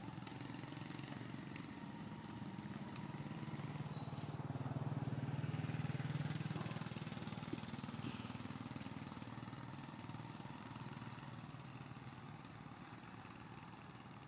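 A distant motor vehicle engine running, growing louder to a peak about five or six seconds in and then slowly fading away.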